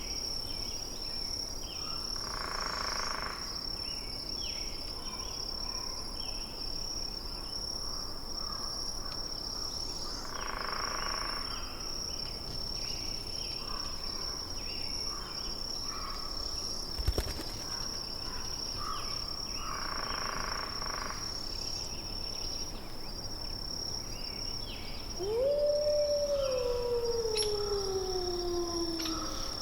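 Nature ambience: a steady high insect trill with scattered bird chirps, and three short calls about eight seconds apart. Near the end an animal gives one long howl that rises quickly and then slides slowly down in pitch for about four seconds; it is the loudest sound.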